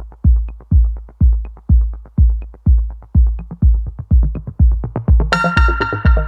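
Electronic background music: a steady kick-drum beat about two beats a second with light hi-hats, and a bright synth chord coming in about five seconds in.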